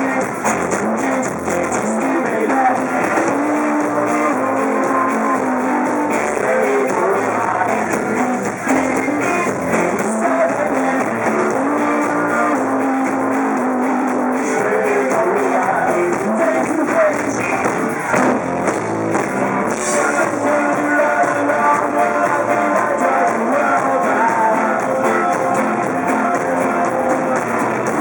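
Live rock band playing a song, with guitars and a singer.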